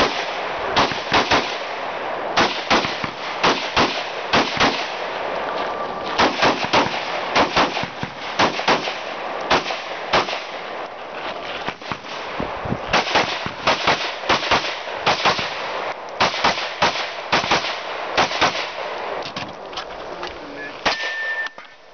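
Semi-automatic AR-style rifle fired rapidly at targets: dozens of sharp shots in quick pairs and short strings with brief pauses between them. The last shots near the end come from a handgun after the switch from rifle to pistol.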